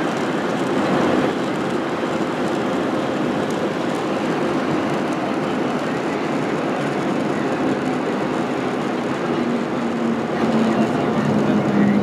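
Jet airliner moving along the runway, heard from inside the cabin: a steady rumble of engine and rolling noise. A low hum comes up and the noise grows a little louder in the last couple of seconds.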